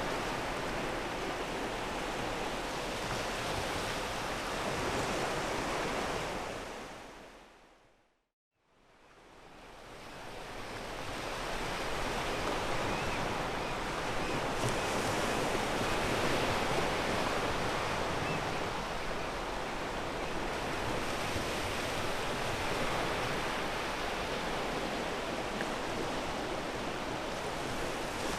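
Ocean surf washing onto a pebble beach, a steady rushing of waves. About eight seconds in it fades out to a moment of silence and fades back up over the next few seconds, the join of an edited loop.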